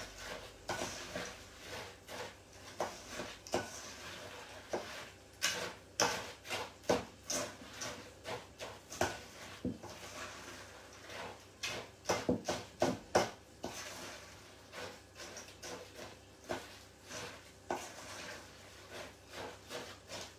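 Spoon knocking and scraping against a stainless steel mixing bowl, stirring a stiff chocolate mixture with pieces of dry biscuit in it. The knocks are irregular, about one or two a second.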